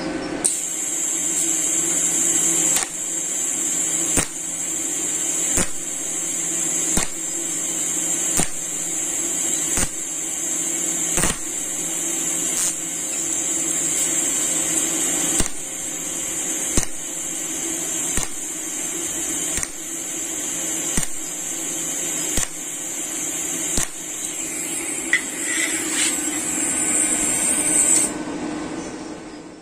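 TIG welding arc from a Caldweld TIG 250 GP inverter welder, a steady hiss and buzz. A sharp click comes about every one and a half seconds. The sound stops near the end.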